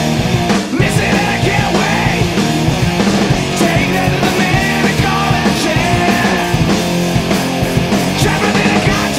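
Loud rock music with a steady drum beat, the edit's soundtrack.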